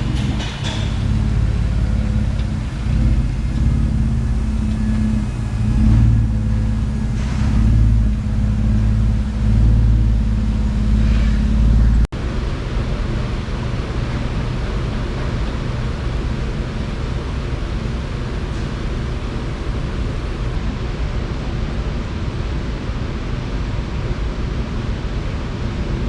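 Jeep's engine running with a heavy, uneven low rumble that swells and eases as the vehicle is driven. About halfway through it cuts off suddenly to a steadier, more even low rumble.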